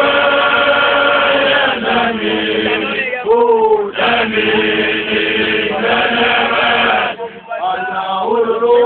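Voices chanting in long, held notes, breaking off briefly a few times, with a sliding note about three seconds in.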